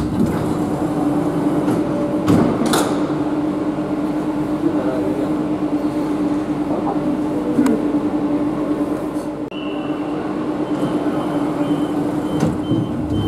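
Madrid Metro series 8400 train standing at a platform with its doors open: steady low hum and background noise, a few knocks, then from about ten seconds in a high-pitched door-closing warning that sounds as one steady tone and then as repeated beeps, signalling that the doors are about to shut.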